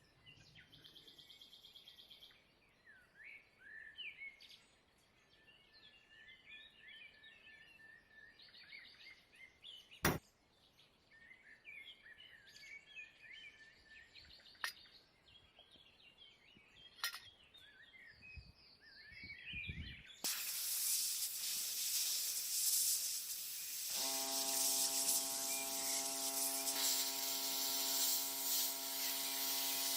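Birds chirping faintly with a few sharp clicks, then about two-thirds of the way in a loud, steady hiss of paint spraying starts; a few seconds later a steady hum joins it.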